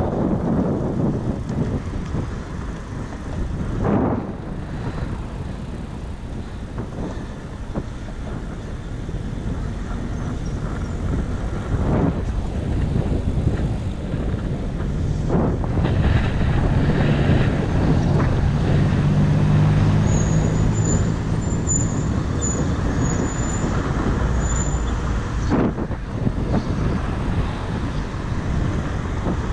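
Road traffic going past, with a heavy vehicle's engine droning through the middle of the stretch and a brief high-pitched squeal near its end.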